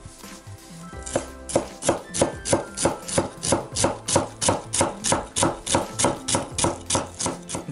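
Large kitchen knife chopping fresh dill fine on a wooden cutting board: quick, even knife strikes on the board, about four or five a second, starting about a second in.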